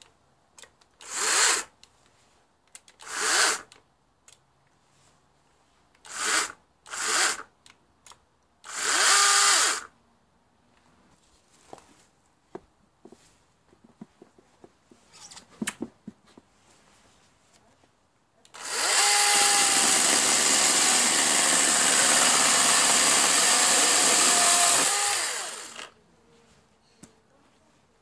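Bosch AKE 30 Li 36 V cordless chainsaw: five short trigger blips in a row, each spinning the chain up and letting it coast down, the last about a second long. After a few light knocks, the saw runs steadily for about seven seconds.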